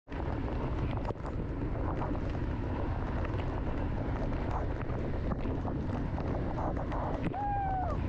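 Waterfall's water rushing in a steady, even roar, with a brief falling tone near the end.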